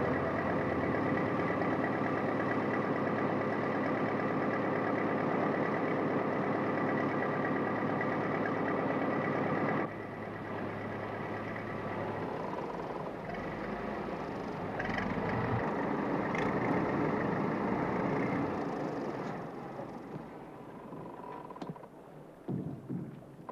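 Motorboat engine running steadily at speed. About ten seconds in it drops a little and changes, and it fades toward the end, with a few short knocks near the close.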